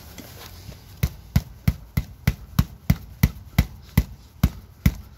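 Repeated sharp knocks, about three a second, starting about a second in: the handle of a tire-plug insertion tool being struck with a hammer to drive the plug deeper into the tubeless tire's puncture.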